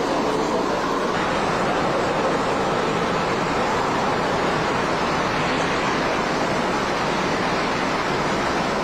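A steady, even rushing noise with no distinct knocks, voices or changes.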